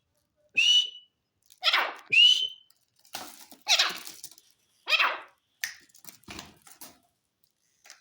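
A francolin (teetar) calling loudly: a series of harsh, falling calls mixed with short shrill notes that rise in pitch, about one call every second.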